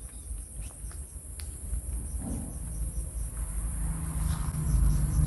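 Crickets chirping in a steady high trill, with a few faint clicks and a low rumble that grows louder toward the end.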